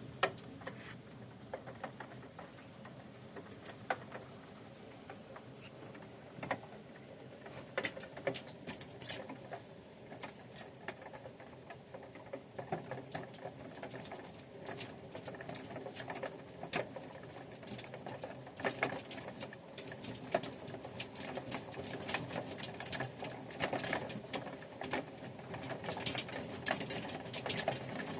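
Hailstones ticking and pattering against a window pane over a steady hiss of rain, the hits scattered at first and coming much thicker from about eight seconds in.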